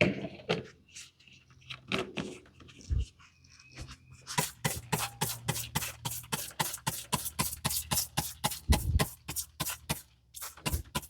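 Hand sprayer squirting a diesel and motor-oil mix onto round-baler chains: a fast, even run of short squirts, about four a second, starting a few seconds in and stopping just before the end.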